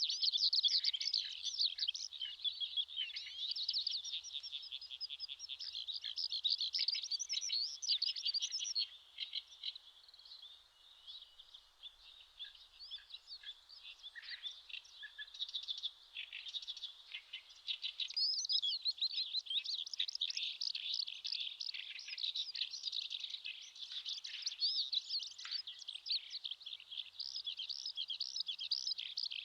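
Eurasian skylark singing: one long, unbroken stream of rapid, high warbles and trills, dropping quieter for several seconds in the middle before coming back at full strength.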